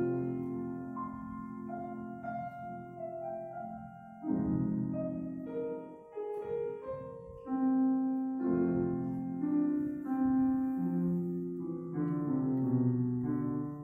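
Piano playing slow chords under a melody line, with the notes ringing and fading. The last chord is struck near the end and held, like the closing bars of a piece.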